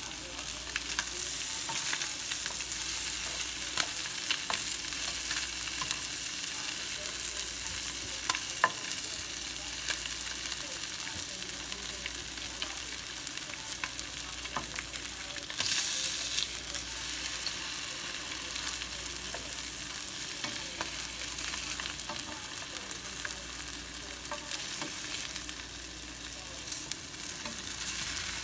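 Pancake and slices of Spam frying in a nonstick pan, a steady sizzle with a few sharp clicks.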